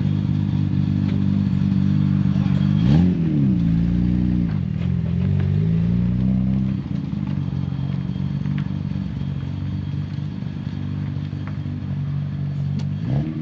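A car engine idling steadily, revved once about three seconds in and dropping back to idle, then brought up gently again a couple of seconds later, with one more short rev near the end.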